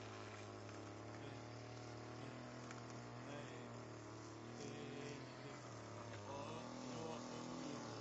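Lawn mower engine running steadily with a low, even hum.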